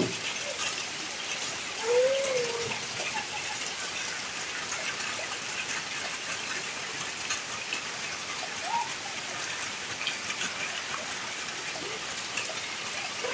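Steady heavy rain falling on a puddled dirt yard and fallen leaves: an even hiss with fine patter of drops. A brief faint call rises and falls about two seconds in.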